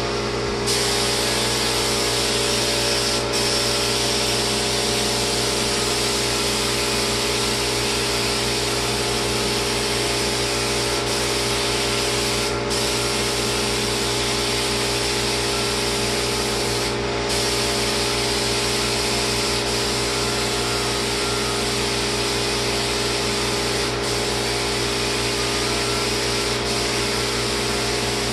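Lacquer spray gun hissing steadily as it sprays, cutting out for a moment a few times as the trigger is let go, over a steady machine hum.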